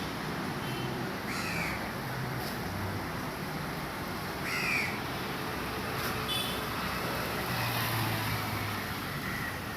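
Two short bird calls, about a second and a half in and again near the five-second mark, over a steady background hiss.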